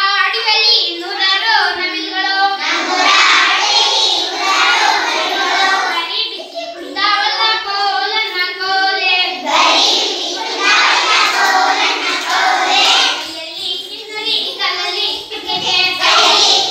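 A group of young children singing a song together, phrase after phrase with short breaks between lines.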